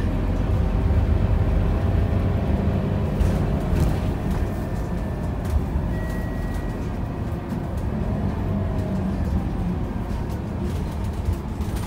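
Scania K230UB city bus heard from inside the passenger cabin while driving: its diesel engine and drivetrain run steadily under road noise, with light rattles from the cabin fittings and a brief high tone about six seconds in.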